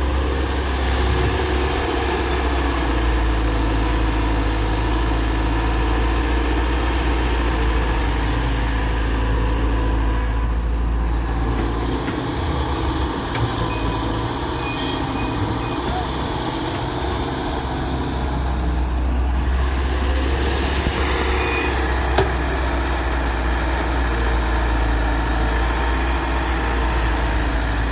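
Heavy diesel engine of a Hyundai excavator running steadily under work. The low hum eases for a few seconds midway, and there is a single sharp knock about 22 seconds in.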